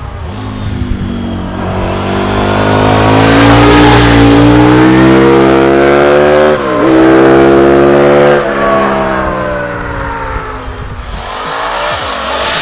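KTM quad with a motorcycle V-twin engine accelerating hard, its pitch climbing and dropping sharply at upshifts about six and a half and eight and a half seconds in. It grows louder, then fades as it pulls away.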